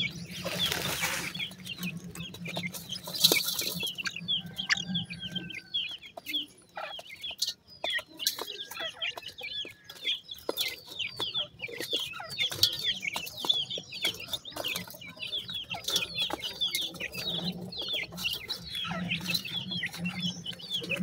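A group of grey francolin chicks giving short, high peeping calls in quick, overlapping succession, with sharp little taps from pecking at the feed and soil.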